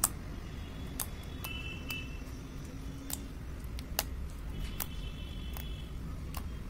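Fluffy glue-and-toothpaste slime being poked and stretched by hand, giving sharp pops and clicks as trapped air bursts, roughly one a second.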